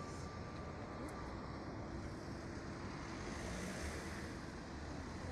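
Steady city street traffic noise with a low rumble, and a vehicle passing about three seconds in.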